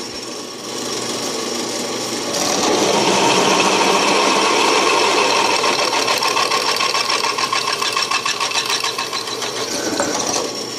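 Drill press running with its twist bit cutting into a steel plate, a steady machine sound with a fine rapid chatter. The sound gets louder about two seconds in, as the bit bites into the steel.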